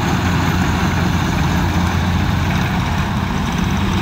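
Kubota DC-93 combine harvester's diesel engine and threshing gear running steadily as it cuts rice, a constant low hum under a broad mechanical rush.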